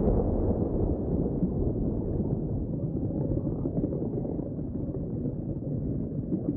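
Low, steady rumbling sound effect under an animated outro card, slowly fading.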